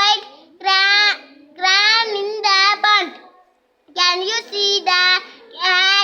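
A child singing a song alone in high, drawn-out phrases, with a pause about halfway through.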